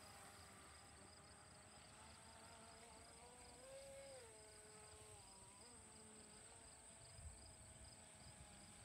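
Faint whine of a radio-controlled speedboat's motor running far out on the water, its pitch rising about three and a half seconds in and falling again a second later.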